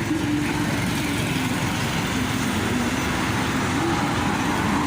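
Steady traffic and engine noise, even throughout with no sharp knocks.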